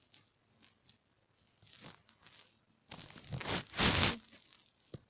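Rustling and rubbing handling noise, coming in uneven bursts that grow to the loudest about four seconds in, with a small click near the end.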